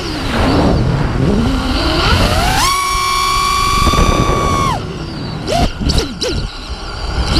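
FPV racing quadcopter's four brushless motors (Scorpion 2205, 2350 kV, HQ 5x4x3 props) whining as the throttle changes. The pitch falls sharply at the start as the throttle is cut, climbs back, then holds high for about two seconds. Near the middle it drops off abruptly, gives a few quick throttle blips during the dive, and rises again near the end.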